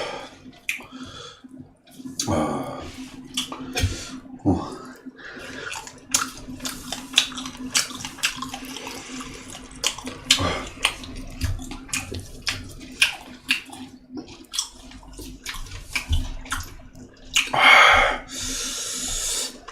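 Close-miked wet chewing and lip-smacking of someone eating boiled pork wraps and fermented skate: many short, irregular smacks and clicks over a faint steady hum. A louder rush of noise lasting about two seconds comes near the end.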